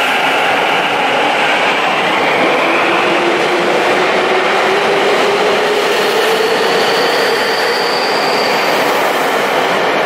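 Electric commuter train accelerating out of an underground station, its traction motors giving a slowly rising whine over the steady running noise of the wheels on the rails. A higher whine joins in for a couple of seconds near the end.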